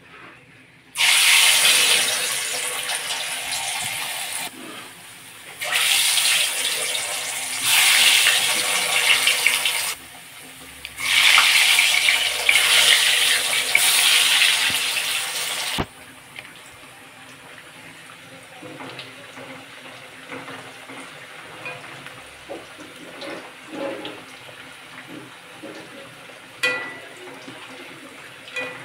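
Potato slices deep-frying in hot oil in a steel wok. A loud sizzle comes in several long spells in the first half, as wet slices go into the oil, then drops abruptly to a quieter steady sizzle with small crackling pops.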